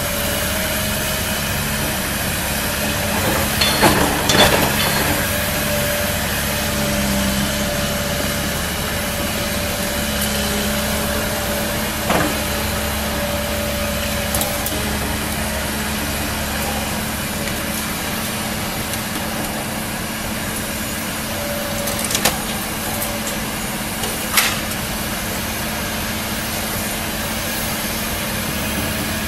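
Liebherr 946 crawler excavator's diesel engine running steadily while it works a demolition boom, with sharp knocks and cracks of concrete breaking and falling: a cluster about four seconds in, then single ones around the middle and twice near the end.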